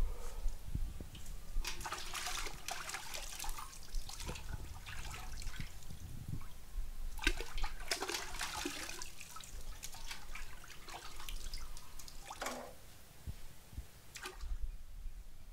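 Water splashing and dripping in a steel pot as chicken leg pieces are rubbed and wrung by hand while being washed, in irregular bursts of swishing with drips falling back into the pot.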